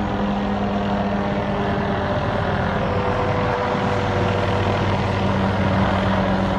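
Helicopter running steadily overhead, a constant drone of engine and rotors with a low hum.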